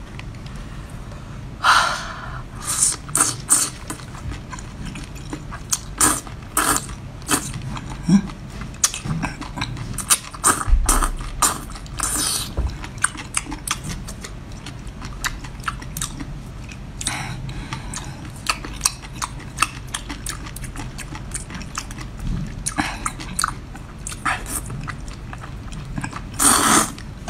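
A person chewing and slurping a long octopus tentacle coated in chili sauce: many short wet clicks and smacks throughout, with longer slurps near the start, around the middle and near the end.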